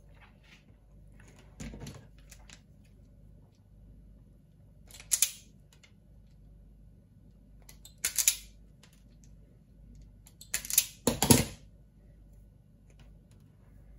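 Self-adjusting wire strippers snapping shut and springing open as they grip and strip the jacket off thin coax cable: a few faint clicks, then four sharp snaps a few seconds apart, the last two close together.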